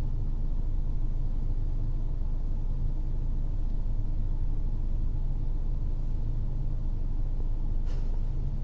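Steady low-pitched hum and rumble with a strong low drone, unchanging throughout: the audio fault of a cheap AliExpress recording device.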